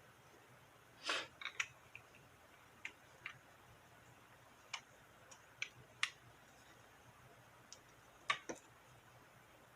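Scattered light clicks and taps of small craft supplies being handled and set down on a work table, about a dozen in all, with a slightly longer one about a second in and two close together near the end.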